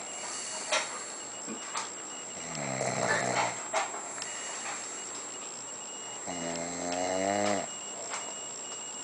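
Snoring: two long, pitched snores about four seconds apart, each lasting over a second, with a few short sharp clicks in between.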